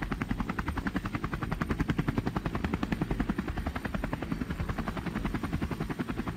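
Helicopter rotor chopping steadily in rapid, even beats over a low engine rumble.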